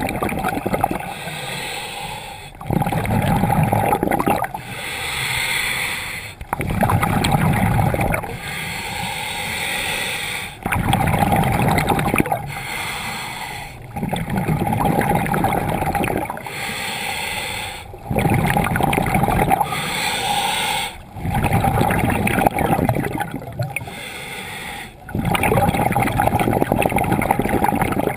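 Scuba diver breathing through a regulator: an inhaled hiss, then a rush of gurgling exhaled bubbles, in a steady cycle about every three to four seconds, heard muffled through the camera's underwater housing.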